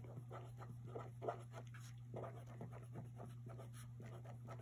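Marker pen writing on a paper workbook page: a run of faint, short scratching strokes as the words are written, over a low steady hum.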